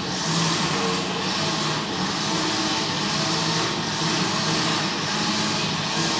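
Steady city traffic noise, with cars and engines running and a continuous low engine hum under a wash of road noise. It is picked up through the horns of a sound-mirror listening apparatus.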